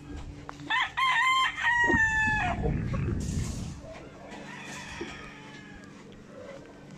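A gamefowl rooster crowing once, a loud crow of about two seconds starting just under a second in. Fainter crowing follows a couple of seconds later.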